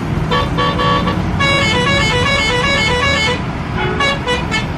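Fuel tanker truck's horn sounding over the low, steady running of its engine: a string of short toots, a long blast of about two seconds, then more short toots near the end.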